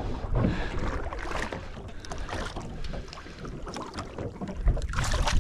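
Water splashing and lapping beside a small boat as a small jewfish is brought to the surface and taken by hand, with wind on the microphone. The loudest splashing comes near the end.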